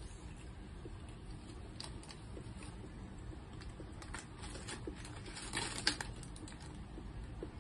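Thin plastic bag and paper bag crinkling and rustling as fingers pick at food inside, in short scattered crackles with a longer, louder rustle about five and a half seconds in.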